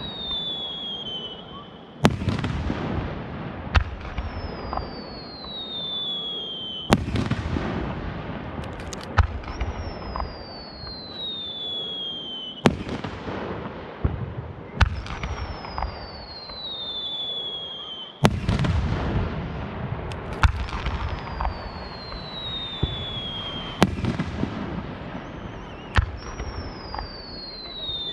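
Aerial fireworks shells bursting one after another, sharp bangs every two to four seconds, each trailing off in crackle and rumble. A high whistle gliding down in pitch over about two seconds recurs every five or six seconds among the bursts.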